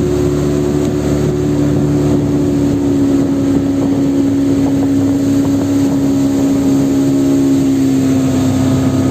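Small boat engine running steadily under way, its pitch drifting slightly lower.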